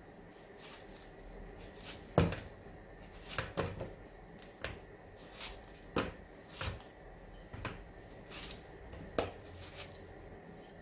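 Kitchen knife slicing a peeled plantain held in the hand, with irregular soft knocks and clicks, about ten in all, as the knife cuts through and the slices drop into a plastic bowl; the loudest comes a little after two seconds in.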